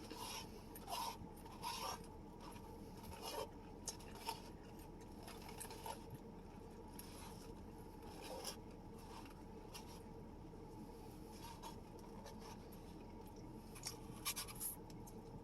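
Quiet eating sounds: chewing with scattered light clicks and scrapes, busiest in the first couple of seconds and again near the end.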